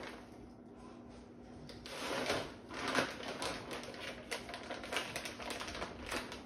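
Plastic protein-powder pouch crinkling and crackling as it is handled, folded and rolled shut, a dense rustle that starts about two seconds in.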